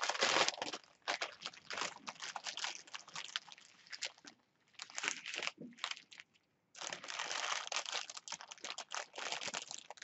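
Plastic packaging of diamond-painting supplies crinkling and rustling in quick, irregular crackles as it is handled. It pauses briefly twice around the middle.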